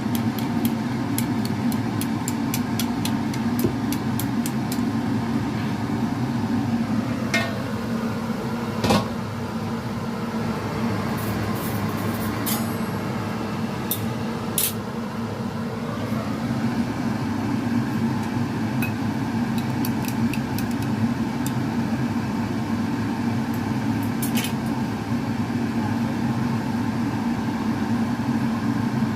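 A steady low machine-like hum, with a quick run of light clicks in the first few seconds and a few sharp knocks scattered later.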